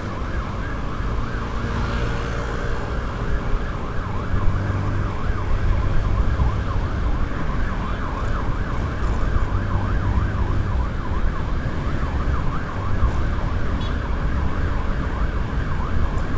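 Whelen electronic siren on an escort motorcycle sounding a fast rising-and-falling yelp without a break, over a steady low rumble.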